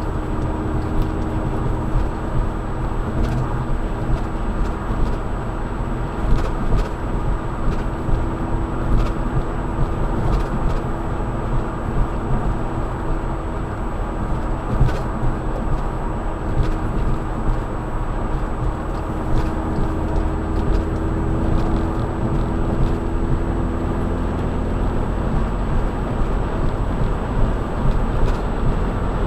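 Volkswagen GTI driving: steady road and engine noise with a low rumble, a steady hum that stops about five seconds before the end, and scattered light clicks.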